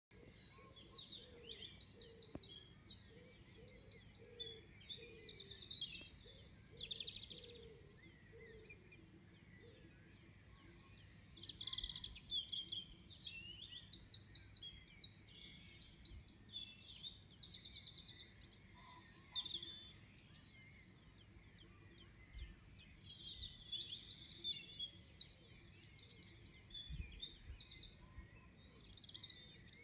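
Dawn chorus of songbirds. One nearby bird sings three long songs of fast high trills and rapidly repeated notes, with short pauses between them, over fainter birdsong in the background.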